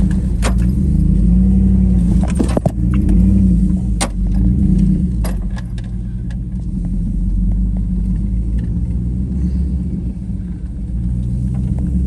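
GMC Yukon's engine running at low speed, its pitch rising and falling as it crawls the trail, with several sharp knocks and rattles as the truck jolts over the rough ground, the loudest cluster about two and a half seconds in.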